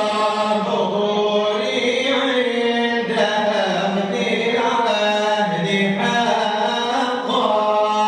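Arabic devotional chanting of a Sufi qasida in praise of the Prophet (madih), with sustained melodic lines that glide and change pitch in phrases a second or two long, without a break.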